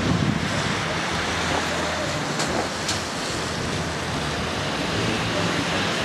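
Wind rushing on the microphone with a low, steady engine hum underneath.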